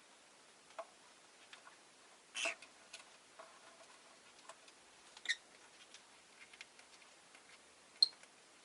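Rosy-faced lovebird making scattered soft clicks and taps, with a brief louder call about two and a half seconds in, a short chirp about five seconds in, and a sharp click near the end.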